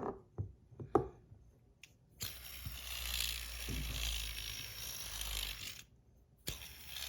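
Fidget spinner with a full ceramic bearing spinning, a steady airy whir lasting about three and a half seconds. Sharp clicks of the spinner being handled come before and after it.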